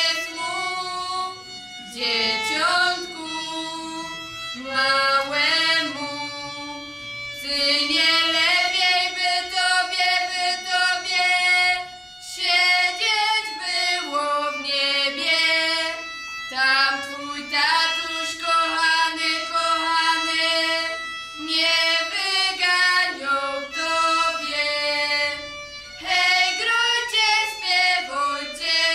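Young female voices singing a Christmas carol (kolęda) in phrases of a few seconds, accompanied by violin.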